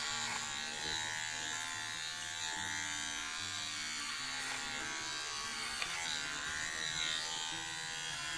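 Electric pet grooming clippers buzzing steadily as they clip the fur on a poodle puppy's face and muzzle.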